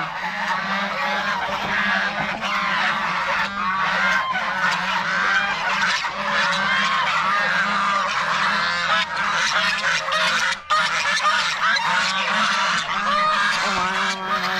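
A flock of geese honking continuously, many calls overlapping, over a steady low hum.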